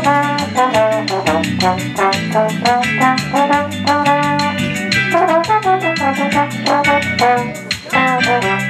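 Slide trombone playing a melody over a recorded backing track with a steady bass line and fast, even percussion, heard through a small amplifier.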